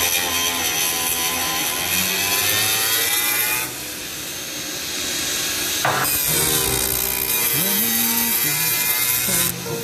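Stick welding arc with a 7018 electrode crackling and sizzling steadily while running the cap pass on carbon steel pipe. The arc breaks off about four seconds in, strikes again with a sharp snap about two seconds later, and stops again near the end.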